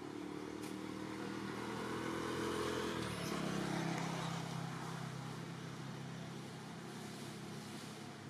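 Engine of a passing motor vehicle: a steady engine note grows louder, drops in pitch about three seconds in, then slowly fades.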